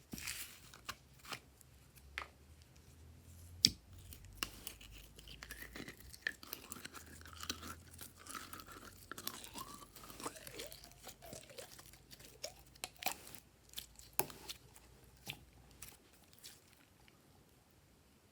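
Glossy slime being squished and stretched by hand: irregular sharp clicks and pops, with wavering squeaks in the middle.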